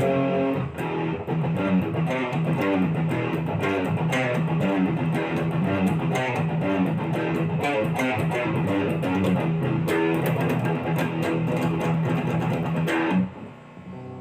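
Essex Les Paul-style electric guitar played through an amplifier: a busy passage of quickly picked notes and chords. About 13 seconds in the playing stops and the last notes ring out more quietly.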